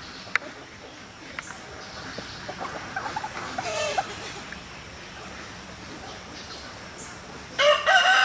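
A rooster crowing: one long, loud crow starts near the end. A few shorter, softer calls come a few seconds earlier.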